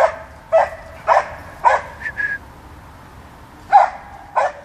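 Dog barking repeatedly up a tree at squirrels: four sharp barks about half a second apart, a short high whine, then after a pause of over a second two more barks.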